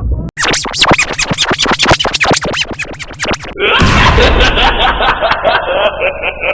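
A baby-laughing sound effect remixed as a music-style variation: first chopped into a fast run of short scratch-like sweeps, then about three and a half seconds in switching to a denser, muffled-bright variation of the same laugh.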